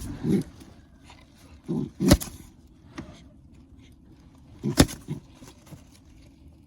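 Three sharp knocks or slaps, each with a duller thump just before it, about two to three seconds apart, over faint rustling.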